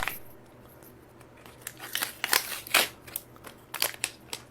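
A pair of scissors worked open and shut: a few short scraping snips of the blades about halfway through, with some handling rustle between them.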